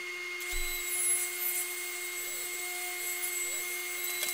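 Table saw running and ripping a thick wooden blank: a steady motor whine, with the blade's cutting hiss from about half a second in.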